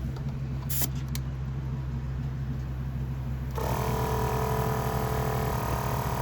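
An engine idling steadily, with a couple of sharp clicks about a second in. A few seconds in, a higher, steady whine made of several tones starts up over the idle.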